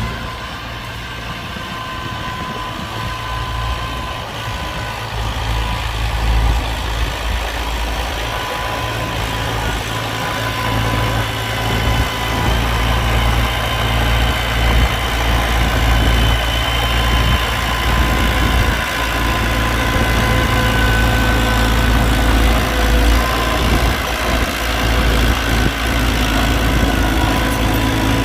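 Heavy diesel engine of a dump truck or bulldozer running steadily with a deep rumble and a few thin, steady whining tones above it, growing louder over the first several seconds.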